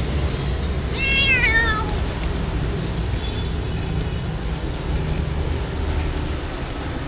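Stray cats meowing to be fed: one loud meow falling in pitch about a second in, and a fainter, higher meow about three seconds in, over a steady low rumble.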